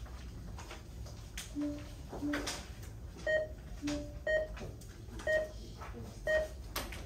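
School electronic warning bell: a few low tones, then a short higher beep repeating about once a second, signalling that the class period is nearly over.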